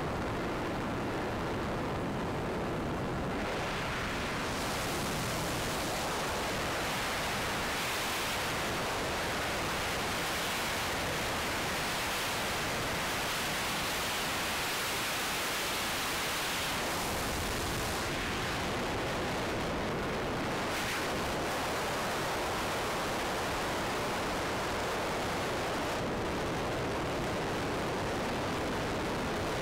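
Steady rush of airflow and propeller noise on an RC plane's onboard camera microphone in flight. It turns brighter and hissier a few seconds in and duller for a few seconds past the middle.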